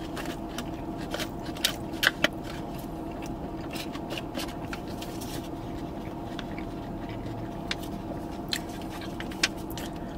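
Close-up eating sounds: chewing and mouth noises, with scattered clicks and scrapes of a plastic spoon and cup against a foil takeout bowl. A steady low hum runs underneath.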